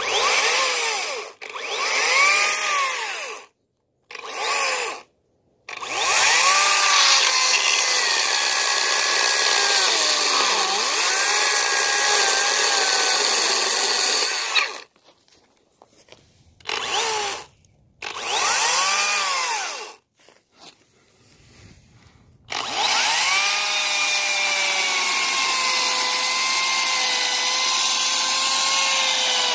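Makita XCU06 18V brushless top-handle cordless chainsaw cutting into an oak stump in repeated bursts, the motor jumping straight to full speed each time the trigger is pulled and stopping between cuts. Its whine sags and wavers in pitch as the chain bites into the wood, with two longer cuts in the middle and near the end.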